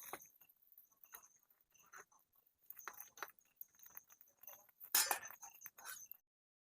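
Irregular rustling and light clicking, with a louder burst about five seconds in; the sound cuts off abruptly just after six seconds.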